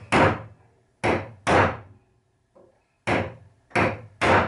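Hammer tapping a nail punch to sink a nail head that has come through the face of a cabinet door below the surface, ready for filler: six sharp strikes at uneven gaps.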